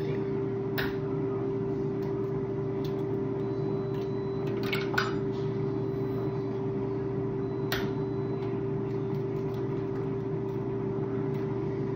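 Steady hum of a running kitchen appliance, with a few sharp clicks over it.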